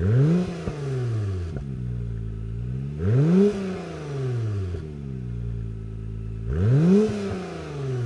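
Stock-exhaust Acura NSX (2017+) twin-turbo V6 blipped from idle three times: each rev rises quickly in pitch, then falls back to a steady idle.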